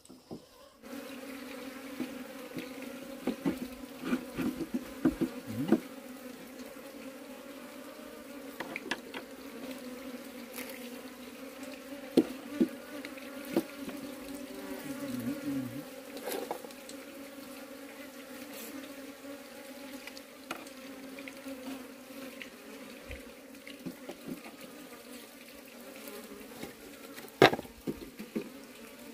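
Honeybees buzzing in a steady, even hum around opened comb, with scattered light taps and clicks from handling; the loudest clicks come near the end.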